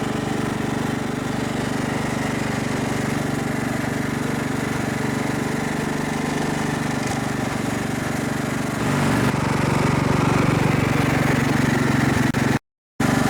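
Riding lawn mower engine running steadily while towing another mower; it gets louder about nine seconds in, and the sound drops out for a moment near the end.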